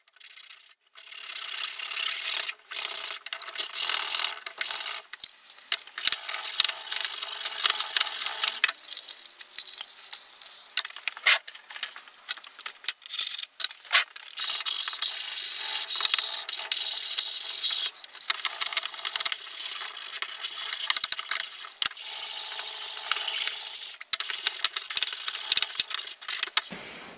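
Wooden box being hand-sanded with a sanding block for a finishing sanding: scratchy back-and-forth rubbing strokes in runs, with short pauses and a few sharp knocks as the box and block are handled.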